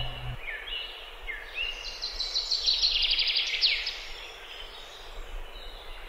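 A songbird singing. First come a few short, falling whistled notes, then a rapid trill of quick high notes lasting just over a second near the middle, ending in a downward sweep.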